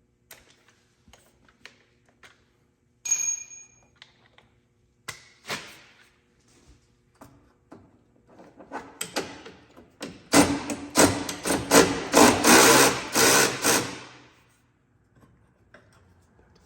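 Hand tools working on metal: scattered clinks, a ringing metallic clink about three seconds in, then several seconds of rapid ratchet clicking that fades out near the end.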